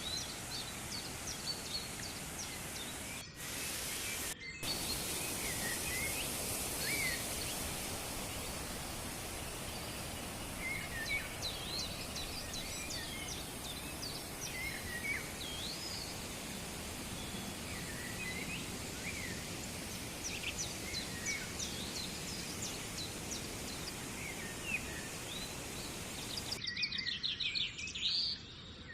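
Steady rushing noise of a waterfall, with small birds chirping and trilling over it. The noise breaks off briefly twice a few seconds in, and in the last two seconds it thins out while a quick run of bird trills comes through more clearly.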